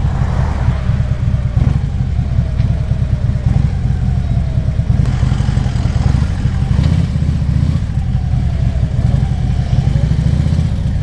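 Harley-Davidson Ultra Classic Limited's V-twin engine running steadily at low revs.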